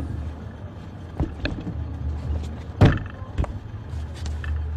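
A car's rear door being opened and a man climbing into the back seat, with a few short knocks and one loud thump about three seconds in as the door is shut. A low steady rumble runs underneath.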